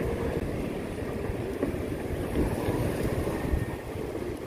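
Wind buffeting the microphone of a bicycle rider moving along a street: a steady low rumble and rush.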